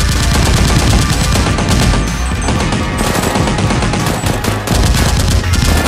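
Rapid, continuous automatic gunfire sound effects dubbed over a Nerf blaster fight, under loud action music.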